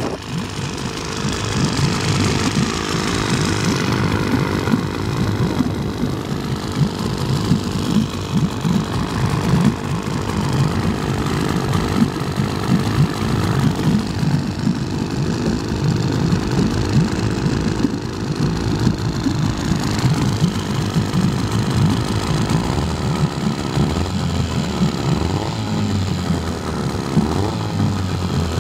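Vikhr-30 two-stroke outboard motor idling steadily, warming up just after a cold start.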